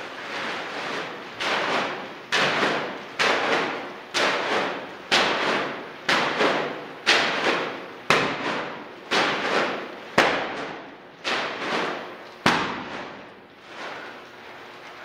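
About a dozen sharp impacts, roughly one a second, each fading over most of a second: a heavy clay-filled plastic trash bag being slammed repeatedly against the concrete floor.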